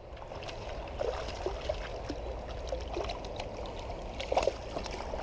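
Creek water running steadily, with small trickles and light splashes scattered through.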